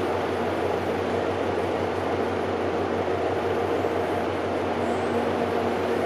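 Steady machinery drone from a passing cargo container ship: a constant low hum with a few steady tones over a noisy wash.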